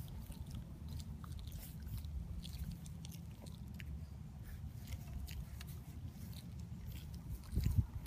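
English bulldog puppies mouthing and sniffing at a hand: faint wet clicks and smacks over a steady low rumble. Near the end, a louder puppy grunt or snort breaks in.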